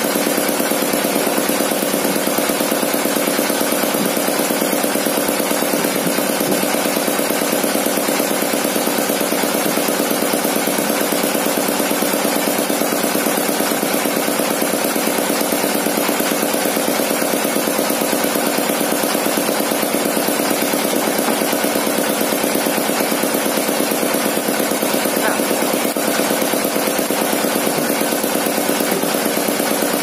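Engine driving a sawmill's circular saw blade, running steadily with a fast, even pulse and no change in load, as the blade spins with no log being cut.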